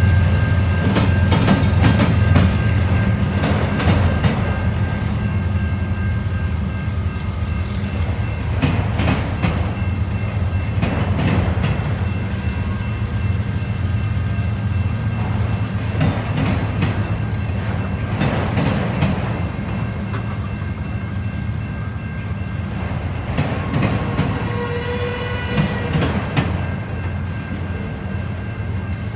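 Freight train of autorack cars rolling past behind a diesel locomotive: a steady low rumble with irregular wheel clacks over rail joints. A short, high wheel squeal comes near the end.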